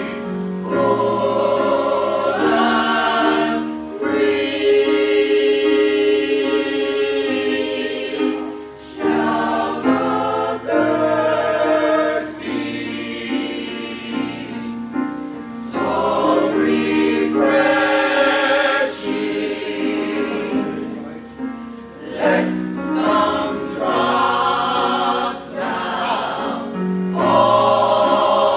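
Small church choir singing together in parts, in phrases with brief pauses between them.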